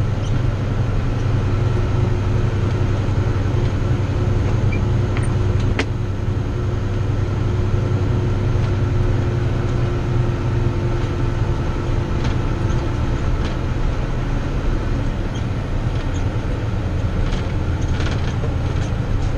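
Airport snow plow truck driving with its plow raised, its engine giving a steady low drone inside the cab. A fainter steady hum rides over it and fades out about two thirds of the way through.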